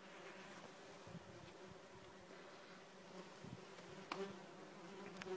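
Common wasps (Vespula vulgaris) buzzing faintly in flight as they gather back at their nest after insecticide has been applied, the disturbed activity typical of a freshly treated nest.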